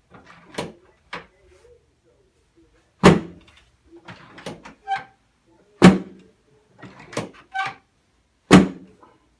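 Three loud thuds on a chiropractic treatment table, about two and a half seconds apart, with softer knocks and rustling between them.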